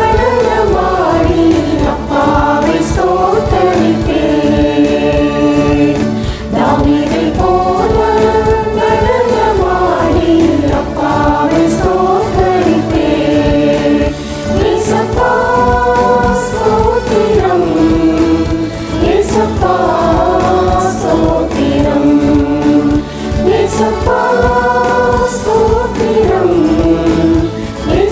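A Tamil Christian worship song sung by a group of men's and women's voices together over an instrumental backing track.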